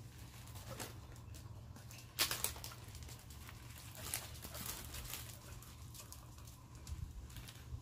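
Scattered light clicks and rustles of hands handling food, loudest in a short cluster a little over two seconds in, over a low steady rumble.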